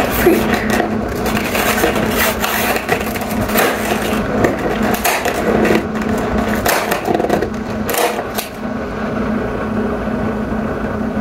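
Fingers picking and prying at a cardboard advent calendar door: repeated short scratches, scrapes and small tearing clicks of card and paper, over a steady low hum.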